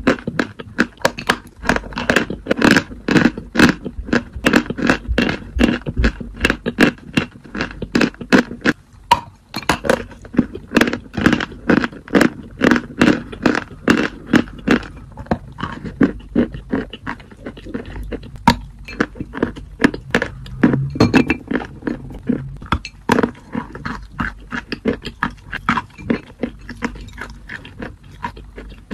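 A person biting and chewing dry chalk close to the microphone: rapid, sharp crunches, several a second, with a brief lull about nine seconds in.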